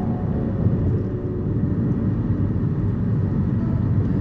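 Steady low rumble of a car driving at road speed: tyre and engine noise heard inside the cabin.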